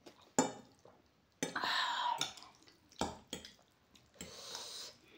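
Close-up wet eating sounds of spicy instant ramen noodles: chewing and slurping in several short bursts, with two sharp clicks, one about half a second in and one about three seconds in.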